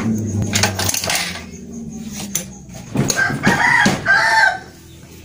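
Honda Supra X 125 four-stroke engine being kick-started, turning over roughly with a rattle and a few sharp clicks: the engine has lost compression and makes a rough noise in the cylinder block. About three seconds in, a rooster crows loudly, drowning it out, and the crow ends a little before the close.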